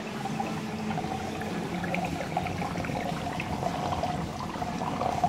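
Water pouring and trickling into the chamber of a model canal lift lock, over a steady hum.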